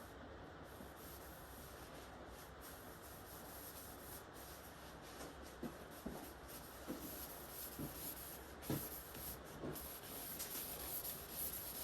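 Cloth towels rubbing over a wooden tool handle as it is wiped dry: soft scuffing strokes with a few light knocks, busier in the second half, over a steady faint hiss.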